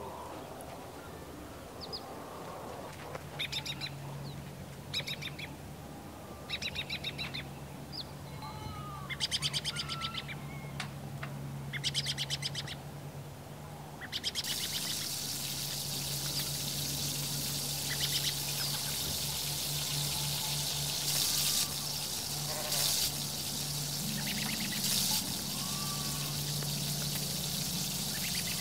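Hot oil sizzling in a miniature iron kadai as small rings of dough fry in it. The steady hiss starts about halfway through and flares louder a few times. Before it, birds chirp in short rapid trills.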